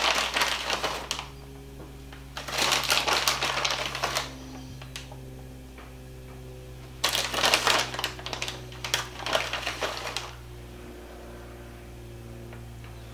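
A plastic bag of shredded cheese rattling and crinkling as a hand digs into it to sprinkle cheese. It comes in three bouts of crackling: one at the start, one about two and a half seconds in, and a longer one from about seven to ten seconds.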